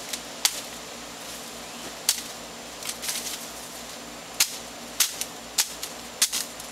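A 12-inch 440C stainless chef knife slicing through the stems of a hand-held leafy branch: a series of sharp snicks, about eight, two of them close together near the end.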